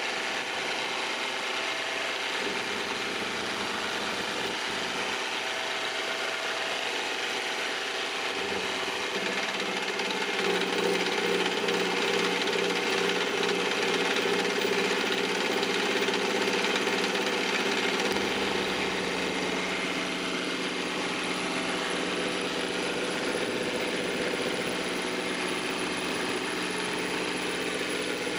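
Mill/lathe combination machine running its milling spindle while an end mill cuts a metal block: a steady motor whine mixed with cutting noise. It grows somewhat louder about a third of the way in, and a deeper hum joins past the middle.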